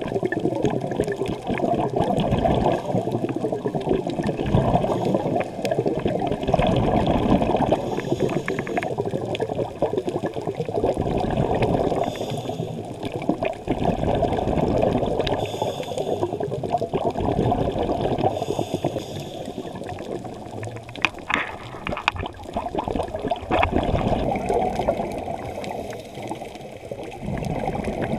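Scuba diving heard underwater through a GoPro housing: a muffled rush of water with surges of bubbling every few seconds, typical of divers' exhaled regulator bubbles.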